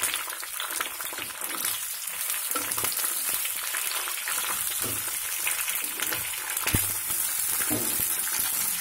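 Chunks of green capsicum sizzling in hot oil in a nonstick kadai, with the scrape and clatter of a spatula stirring them and a few sharper knocks against the pan.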